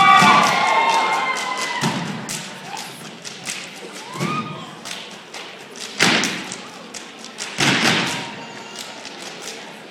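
Step team stomping and clapping in unison: a run of sharp claps and stomps, with two heavy, loud stomps about six and seven and a half seconds in. Voices call out during the first second.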